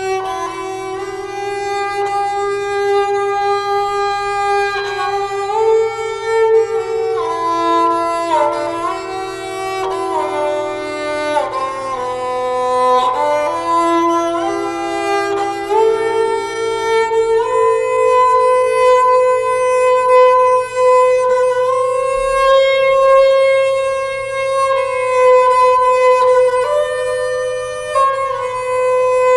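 Slow, calm instrumental background music with long held notes and gently gliding melodic lines.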